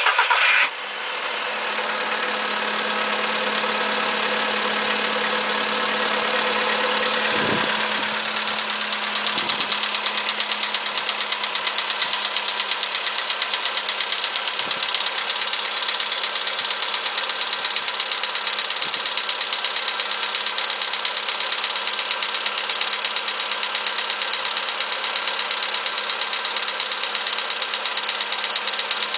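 An engine catches at the very start and then idles, with a fast, even knock running through the idle. This is the knock heard before a part was replaced. About seven and a half seconds in, the idle settles a little lower.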